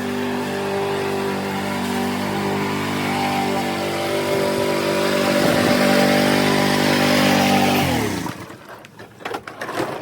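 Kohler XT675 single-cylinder engine on a walk-behind lawnmower running steadily, then shut off about eight seconds in, its pitch falling quickly as it winds down. A few knocks and clicks follow.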